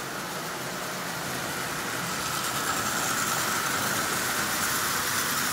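Prewar Marx 999 O-gauge electric toy locomotive running at half power on three-rail track, pulling ten tin lithographed cars: a steady motor whine with the rattle of wheels on the rails, growing louder about two seconds in.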